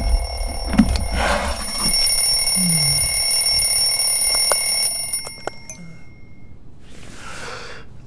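Alarm clock ringing with steady high tones that cut off about five seconds in, followed by a brief swish near the end.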